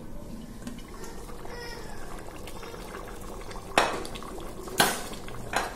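Pressure cooker lid and pot clanking: three sharp metal knocks in the second half, over a faint bubbling of the just-cooked curry.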